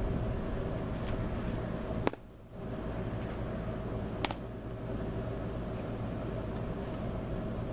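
A baseball pitch popping into a catcher's mitt about two seconds in, with a fainter click about two seconds later, over a steady background noise.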